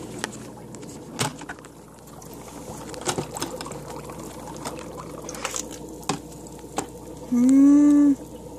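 Water bubbling and trickling around a plastic tube in a bucket, with scattered light knocks from handling. Near the end a person makes a short voiced hum, the loudest sound here.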